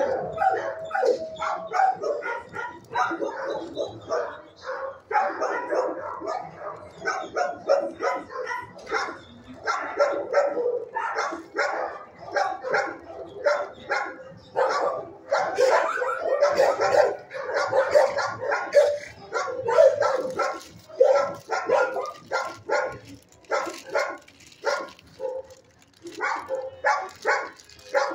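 Many dogs in neighbouring shelter kennels barking continuously, their barks overlapping, with a short lull near the end.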